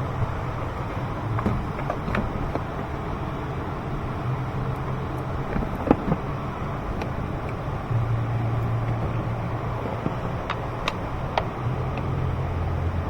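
Sharp clicks and taps from hose clamps and plastic intake parts being handled and refitted, a few seconds apart, over a steady low hum that grows a little louder about two-thirds of the way in.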